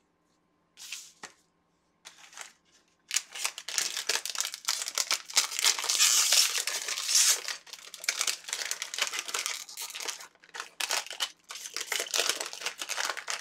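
A LEGO Collectible Minifigures blind bag handled and torn open by hand, its wrapper crinkling in a dense, crackling rustle that starts about three seconds in, peaks midway and keeps on, after a near-quiet start with a couple of faint rustles.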